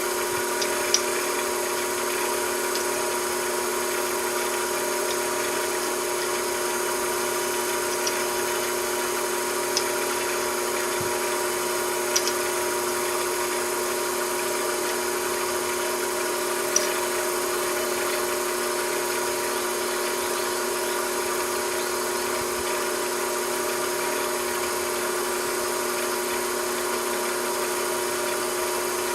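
Small metalworking machine tool running steadily with an even electric-motor hum, a few faint ticks scattered through it.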